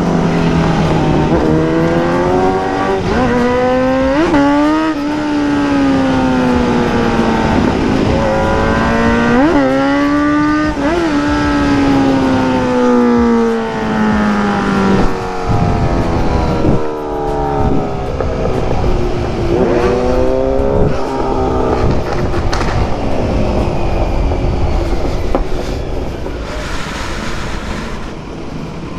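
Sport motorcycle engine running hard, its pitch rising and falling with the throttle, with quick sharp revs about 4, 9 and 11 seconds in. It settles lower and quieter near the end.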